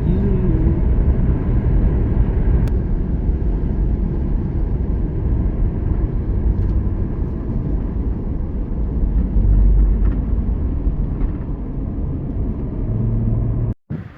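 A vehicle driving, with a steady low road-and-engine rumble as heard from inside the cab. It cuts off suddenly near the end.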